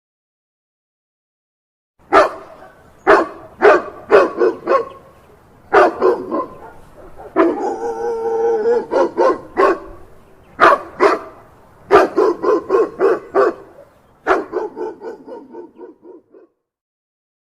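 A dog barking in sharp, repeated barks, some single and some in quick runs, starting about two seconds in. About halfway through there is one longer, drawn-out call.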